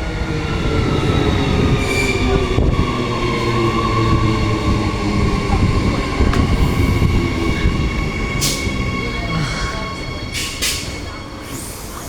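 Queensland Rail SMU electric multiple unit pulling into the platform. Its motor whine falls slowly in pitch as it slows, over a loud rumble with a thin high squeal. A few sharp clicks come near the end.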